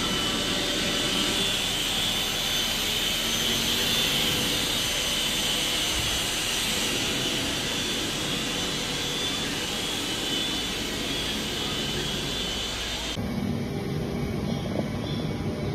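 CNC foam-cutting machine running: a steady mechanical whir with a high whine over it. About thirteen seconds in it changes abruptly to a lower, rougher running noise.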